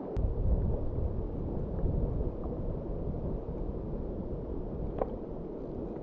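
Rushing river water with wind buffeting the microphone in gusty low rumbles. There is a sharp click just after the start and a short tick about five seconds in.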